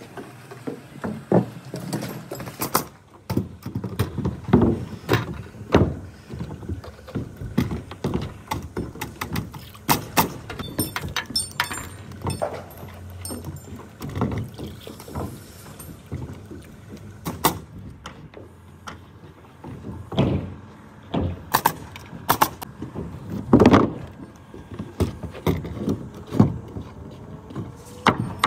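Pneumatic framing nailer firing nails into wood studs and plates, mixed with knocks of lumber being set down and shifted: irregular sharp bangs throughout.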